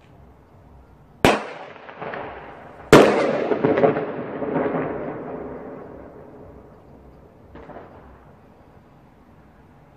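Pyrotechnic bangs: a sharp bang, a smaller crack, then a louder bang about a second and a half after the first, echoing and dying away over about three seconds, with a faint crack near the end.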